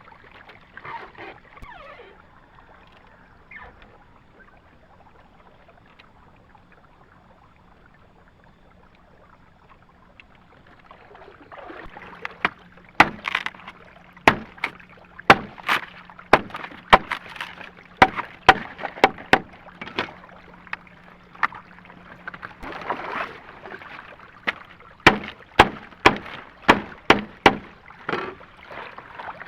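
A rapid series of sharp knocks, roughly two a second, in two runs with a short pause between them, after a quieter stretch of low, hissing background.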